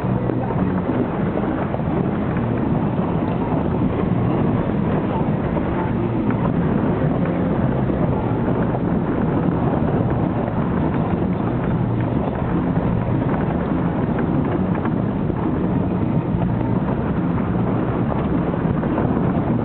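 Steady low rumble of a vehicle's engine and tyres driving a rough dirt road, heard from inside the vehicle.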